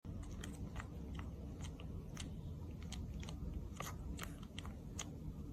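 An animal chewing something crunchy: irregular sharp crunches, several a second, over a low steady hum.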